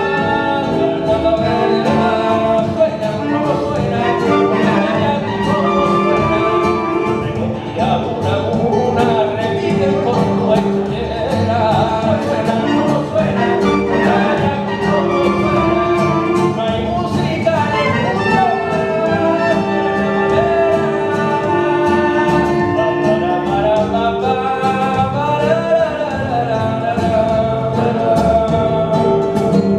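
Live band playing a rumba, with voices singing the melody over the accompanying instruments.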